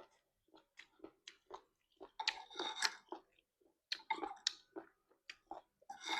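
Close-miked chewing of instant noodles and squid: a run of short, wet, crunchy mouth clicks, with busier spells of chewing about two seconds in and again about four seconds in.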